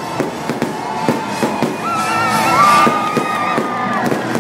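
Fireworks going off in many quick, irregular bangs and pops over a show's music soundtrack, with a held melody line sounding through the middle.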